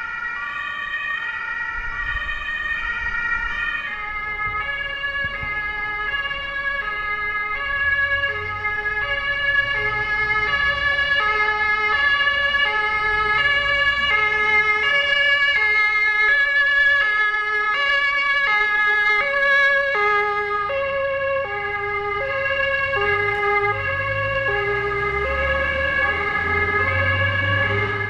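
Several emergency vehicles' two-tone sirens, the German alternating high-low Martinshorn, sounding at once, their patterns overlapping out of step. Under them is the low rumble of the ambulances' engines and tyres as they pass, swelling twice.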